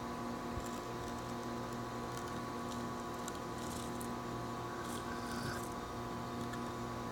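A steady machine hum of several fixed pitches, with faint light rustles and ticks scattered through the middle.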